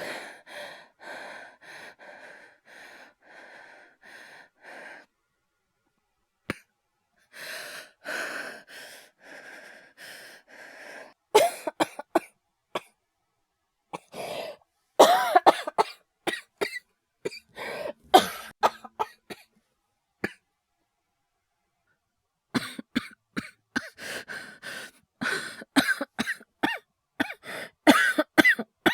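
A man acting a coughing fit. It opens with quick, strained breaths, about two a second. Loud, harsh, irregular coughs follow, then a short silence and another run of coughing near the end.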